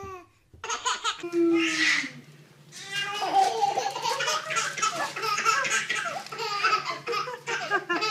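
A baby laughing hard in quick, repeated bursts.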